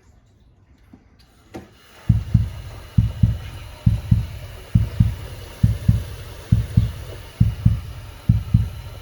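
Heartbeat sound effect: low double thumps, about one pair every 0.9 seconds, starting about two seconds in.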